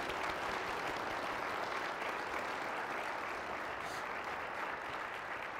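Seated audience applauding, a steady round of clapping from many hands that eases off near the end.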